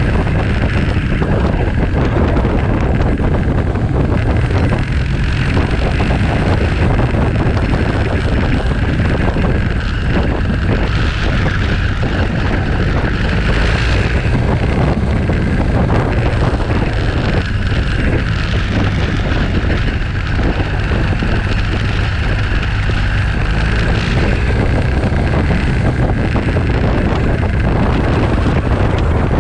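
Steady wind noise buffeting the microphone of a camera on a moving motorcycle, over the running of the bike's engine.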